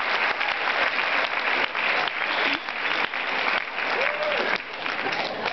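Theatre audience applauding. One voice calls out briefly, rising then falling in pitch, about four seconds in.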